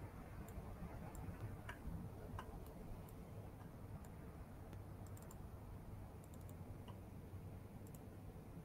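Faint, scattered clicks from a computer being operated, over a low steady hum of background noise.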